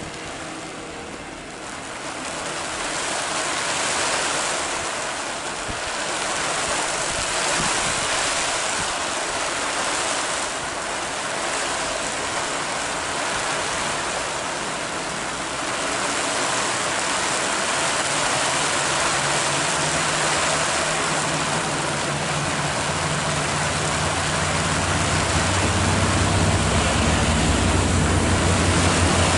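Passenger coaches rolling away over wet track make a steady rushing, hissing noise that swells and ebbs. In the last several seconds a low diesel-engine drone builds up.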